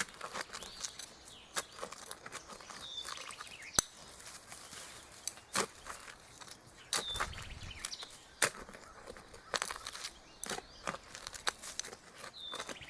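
Hand digging tool scraping and striking soft, damp soil in irregular strokes, with a few short bird chirps.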